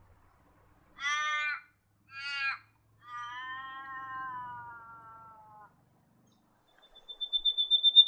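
A crow calling: two short nasal caws, then a long drawn-out one that slowly falls in pitch. Near the end a bird begins a rapid series of high whistled notes.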